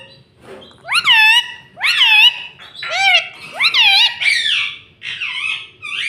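Indian ringneck (rose-ringed) parakeet calling: a series of about six sharp, rising-then-falling calls roughly a second apart, the last couple rougher and harsher.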